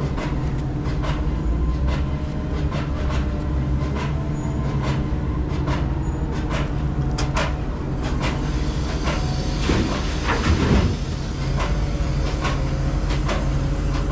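Truck driving, with a steady engine and road rumble and many short rattles and clanks throughout; a louder clatter comes about ten seconds in.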